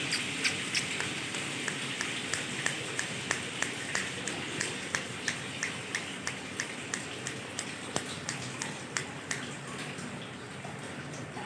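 Male ringneck parakeet making a rapid train of sharp, high clicks, about three a second, which fade and stop near the end, over a steady hiss.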